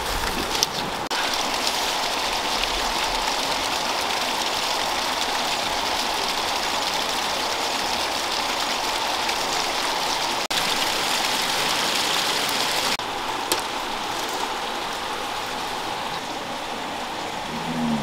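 Steady rushing hiss of falling water, with a brief drop-out a little past halfway.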